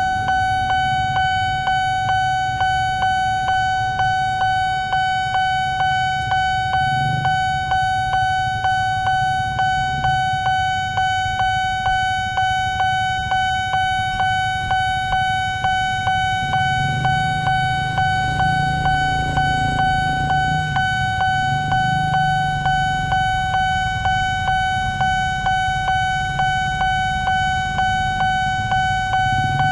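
Railway level-crossing warning bell ringing in a rapid, even repeat of one pitched tone, with road vehicle engines running underneath.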